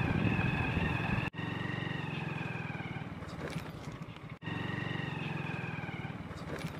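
A motor vehicle's engine running steadily on the move, a low hum with a thin whine above it. The sound drops out abruptly and briefly twice, about a second in and again past the middle.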